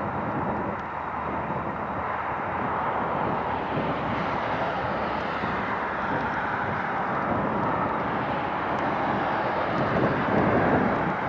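Jet airliner engines running, a steady rushing noise that grows a little louder near the end.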